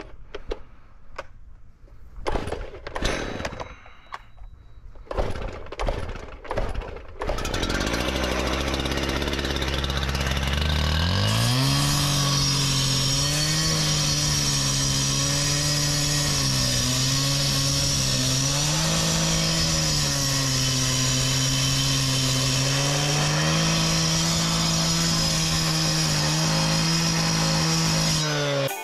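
Two-stroke gas cut-off saw (concrete saw) being pull-started with several sharp yanks. It catches about seven seconds in and idles briefly. It then revs to full throttle and runs high while cutting concrete, its pitch sagging and recovering as the diamond blade bites in.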